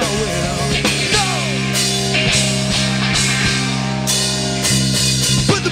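A rock band playing live: electric guitars over a drum kit, loud and steady.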